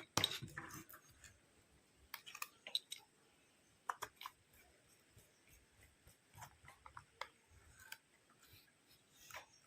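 Light, scattered plastic clicks and taps from a scientific calculator being handled, coming at irregular intervals.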